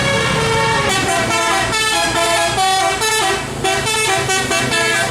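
Bus telolet horn playing a tune: a held chord, then from about a second in a quick melody of short notes stepping up and down in pitch. The bus engine runs low beneath it.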